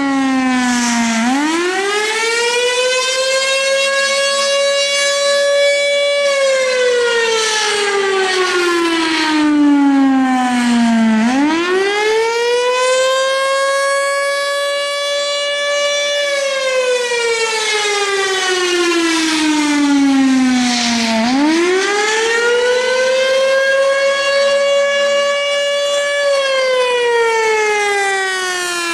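Federal Signal Thunderbolt 1000 civil defense siren sounding a wail. The pitch climbs quickly, holds high for about five seconds, then slides slowly down, and this repeats about every ten seconds, three climbs in all.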